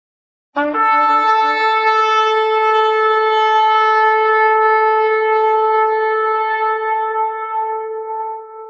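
Shofar (ram's horn) sounding one long, steady blast. It starts about half a second in, is held for about eight seconds, and fades out at the end.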